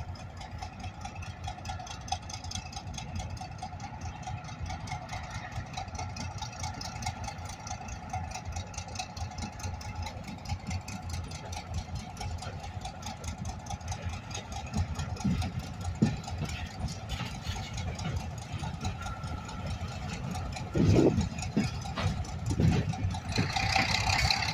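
A diesel switching locomotive's engine running steadily with a fast low throb and a droning hum as it comes along the track. A few low thumps come in the last few seconds.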